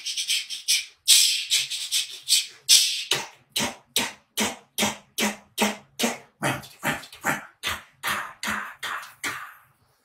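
A man making rhythmic hissing mouth sounds, like beatboxing: a few long hisses at first, then short breathy huffs about two or three a second, fading out near the end.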